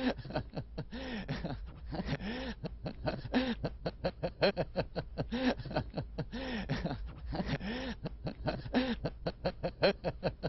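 A coughing fit that goes on and on: runs of short, sharp hacking coughs, each followed by a voiced sound that rises and falls in pitch, repeating about once a second.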